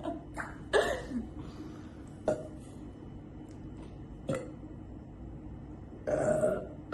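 A woman burping: a short burp about a second in and a longer, louder burp near the end, with two sharp clicks between them.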